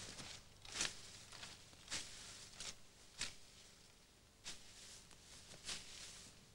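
Tall weeds and grass rustling as hands push and pull through them: a string of short, sharp rustles roughly a second apart, unevenly spaced.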